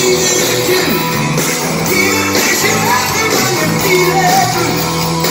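Live rock band playing loud: a male singer singing over electric guitar, bass and drums, heard from the audience in a hall.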